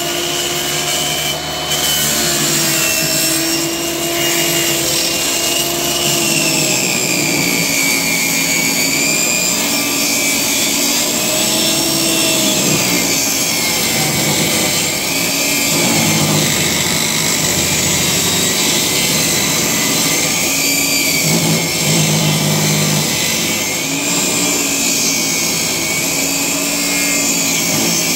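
Makita MLT100 table saw ripping a length of softwood structural lumber, the motor running continuously under load with its pitch wavering as the board is fed through the blade.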